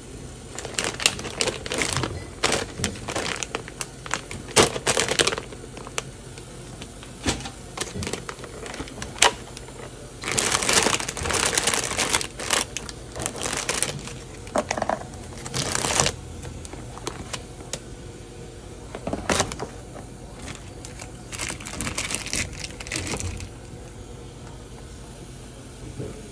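Irregular crinkling and rustling bursts mixed with sharp clicks and knocks, from handling things during cooking preparation. It goes quiet for the last few seconds.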